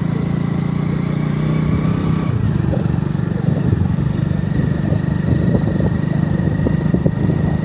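Motorcycle engine running as the bike rides along carrying four people. The engine note is steady at first, then turns uneven and ragged from about two seconds in.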